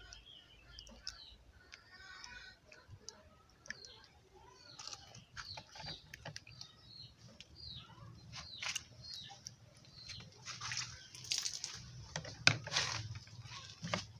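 Hands squeezing and kneading a runny cassava, millet and banana flour batter in a glass bowl: wet squelching and slapping in many short irregular strokes, getting busier and louder in the second half, with a louder sharp knock near the end.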